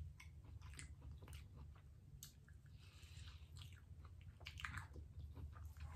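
A person chewing a mouthful of corn on the cob from a seafood boil, heard as faint, irregular wet clicks and smacks.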